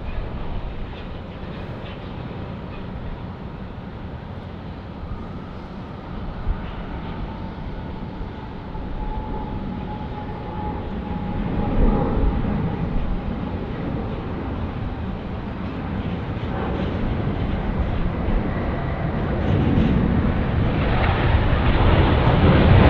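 Airbus A380 with four Rolls-Royce Trent 900 engines landing: a steady low jet rumble with a faint whine that slowly falls in pitch, growing louder through the second half to its loudest near the end as the airliner rolls out on the runway.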